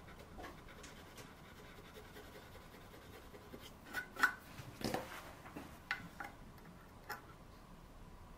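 Quiet handling sounds: a rubber eraser scrubbed across bare birch wood, with a handful of light taps and clicks between about four and seven seconds in as the eraser and small brass clasp hardware are handled.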